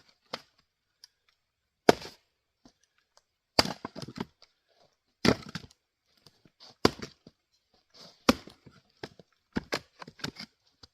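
Axe splitting firewood: five sharp chops about a second and a half apart, with smaller knocks and cracks of wood near the end.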